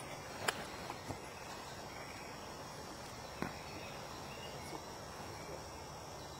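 Faint outdoor background hiss with a few soft clicks.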